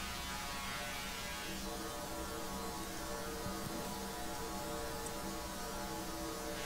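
Noise run through Ableton Live's Resonators device: a steady, hum-like drone of evenly spaced resonant overtones tuned to C2, over a hiss. The device's input notch filter is swept upward, and a dip in the hiss climbs from the low mids into the upper range.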